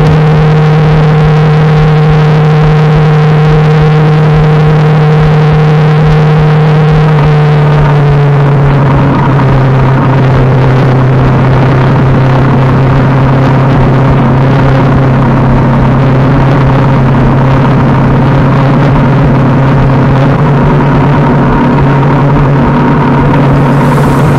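KTM RC390's single-cylinder engine running steadily at highway cruising speed, with wind noise. The engine note drops slightly about a third of the way in and then holds steady.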